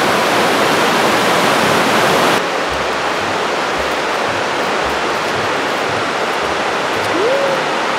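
Waterfall and river rushing through a narrow basalt gorge: a loud, steady rush of water. About two and a half seconds in, the sound turns duller, losing its hiss.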